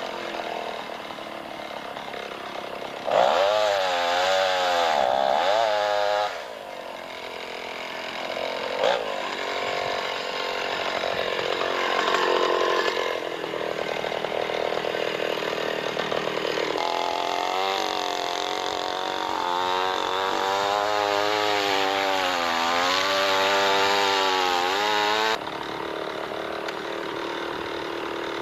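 Chainsaw cutting into a large tree trunk for felling, its engine pitch sagging and recovering as the chain bogs under load. It comes in two loud spells, then drops suddenly to a lower, steady running near the end.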